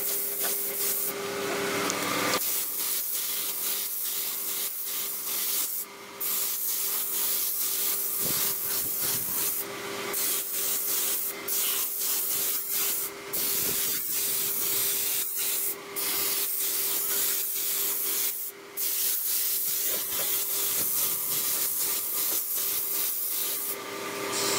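Compressed-air spray gun with a suction-feed cup, hissing steadily as it sprays acrylic paint onto a car body. The spray stops briefly a few times.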